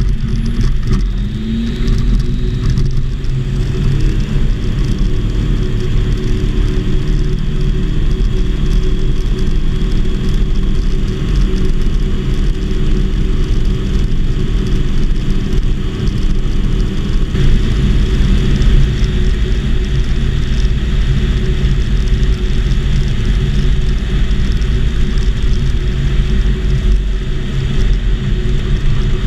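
Volksplane VP-2 light airplane's engine and propeller running steadily, heard from inside the cockpit. The engine pitch rises about a second in, and more hiss joins the drone about halfway through.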